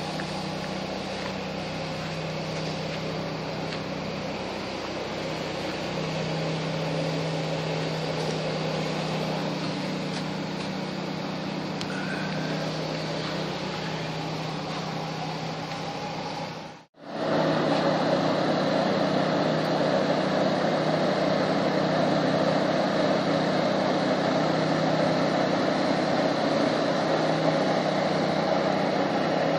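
Steady hum of a motor-driven spray pump feeding a long pesticide spray hose. The sound cuts out for a moment about two-thirds of the way through, then returns louder.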